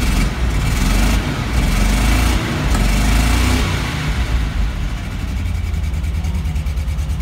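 Car engine heard from the driver's seat, revved up for about three and a half seconds and then settling back to a choppy idle with an even, lumpy pulse.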